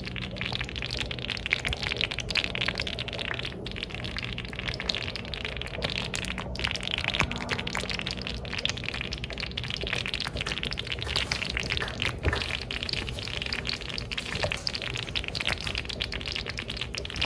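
Thick shiro stew bubbling and spitting in a hot clay pot: a steady dense crackle of small pops.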